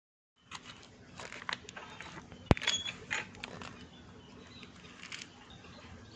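Clicks, knocks and rattles of a plastic pet carrier being handled, starting about half a second in, with one sharp click about two and a half seconds in, over faint bird chirps.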